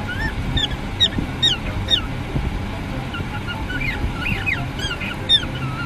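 Parrot calling in a run of short, high, mostly falling chirps, several a second and at times overlapping, over a steady low hum.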